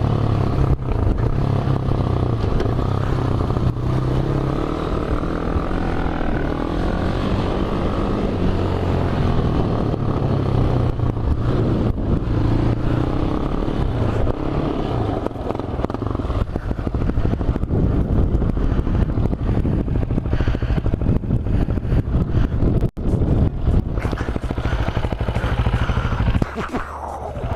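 Polaris Outlaw 450 quad's single-cylinder four-stroke engine running through a CRD aftermarket exhaust, its pitch rising and falling with the throttle. There is a brief break about 23 seconds in.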